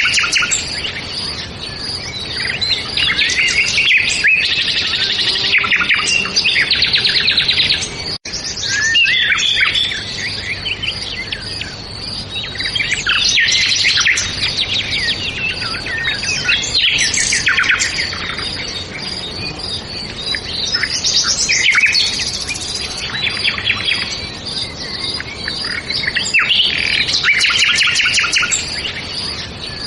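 Many small birds chirping and singing at once: a dense, continuous mix of overlapping chirps and rapid trills. The sound cuts out for an instant about eight seconds in.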